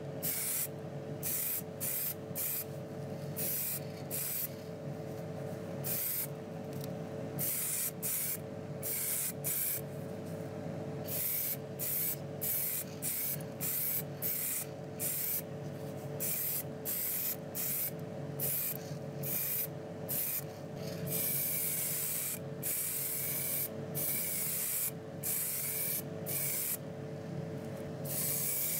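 Compressed-air paint sprayer hissing in many short bursts as paint is sprayed onto small die-cast metal parts, with a longer continuous pass about three quarters of the way through. A steady hum runs underneath.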